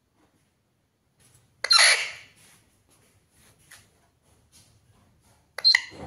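Alexandrine parakeet giving a loud, harsh call about a second and a half in, followed by a few faint clicks, then another short sharp call near the end.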